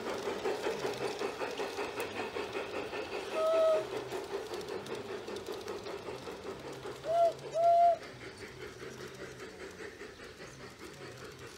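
G-scale model Union Pacific steam locomotive running with a steady rhythmic chuffing. It sounds its whistle: one short toot, then two more a few seconds later, the second longer. The chuffing grows fainter in the last few seconds.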